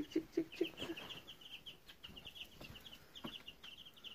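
White Leghorn chicks peeping, a steady fast run of short high cheeps. Four quick low knocks sound in the first half second.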